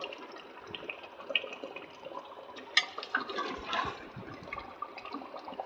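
Goat intestines in thick masala bubbling and sizzling as they are stir-fried in a metal pressure-cooker pot, with a slotted metal spoon scraping and clinking against the pot. One sharper clink comes about three seconds in.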